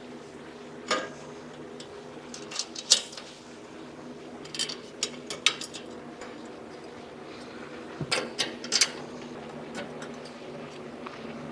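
Scattered metallic clinks and taps as bolts, washers and hand tools are handled against the steel brackets of a welding cart being assembled. There are small clusters of sharp clinks about a second in, around three seconds, around five seconds and near eight to nine seconds. A steady low hum runs underneath.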